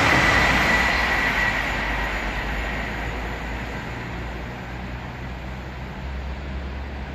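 VR InterCity double-deck passenger train moving away along the track after passing through, its running noise fading steadily. A high whine dies out in the first second or so, leaving a low rumble.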